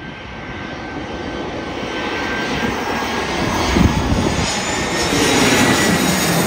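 Airbus A319-100 airliner on final approach with landing gear down, passing low overhead: the jet engines' rush grows steadily louder as it nears, with a faint steady high whine.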